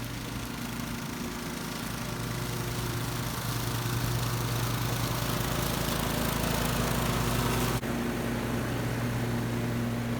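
Riding lawn mower running at mowing speed, a steady engine hum under the rush of the blades and bagger blowing air and leaves into the catcher. The rushing grows louder over several seconds, then breaks off abruptly about eight seconds in and carries on at a slightly lower level.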